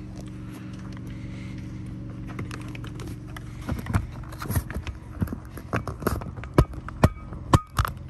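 Driver's airbag module being pushed and pressed into a Chrysler 200 steering wheel hub: a series of irregular knocks and clicks, sparse at first and growing louder and more frequent in the second half, as the module's retaining clips snap in.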